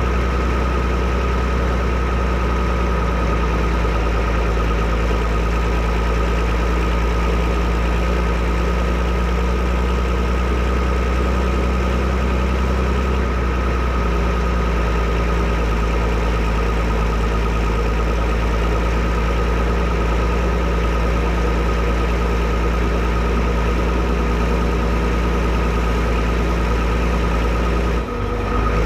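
Fiatagri 115/90 tractor's six-cylinder 5.9-litre FIAT diesel engine running steadily at an even speed. There is a brief dip in level near the end.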